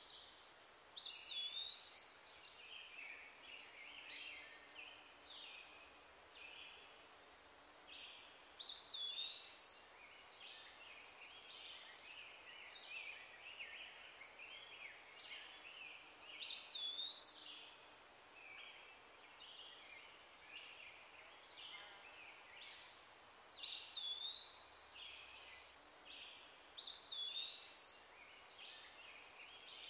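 Songbirds singing and chirping. A phrase with a swooping whistle comes round about every seven or eight seconds, over a faint steady hiss.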